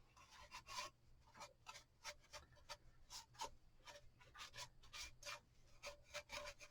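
Faint, quick scratchy strokes of a cloth rubbing antique wax on a wooden cutting board, several a second and uneven.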